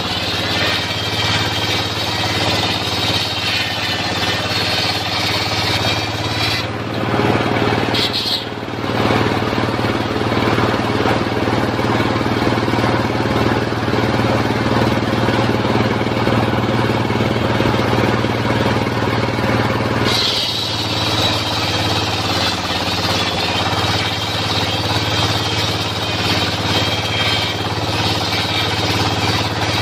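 Mobile circular sawmill driven by its engine, running steadily with a high whine from the spinning blade. From about seven seconds in until about twenty seconds the blade rips lengthwise through an acacia log and the sound turns lower and heavier under the load, then the blade runs free again.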